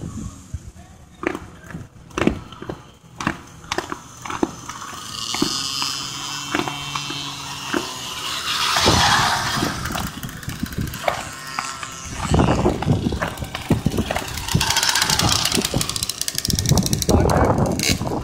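Pocket bike engines buzzing at low speed as the bikes roll in and stop, with voices and several sharp knocks in the first few seconds.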